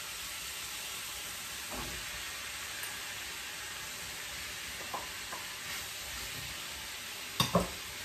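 Diced chicken breast sizzling steadily in hot olive oil in a frying pan as chopped onions are tipped in. There are a few light knocks, then two sharp knocks near the end.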